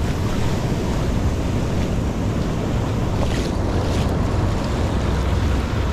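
Shallow surf foaming and washing in, with wind rumbling on the microphone.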